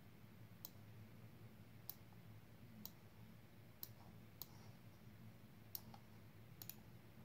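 Computer mouse clicking, single sharp clicks scattered irregularly about a second apart, over a faint low hum.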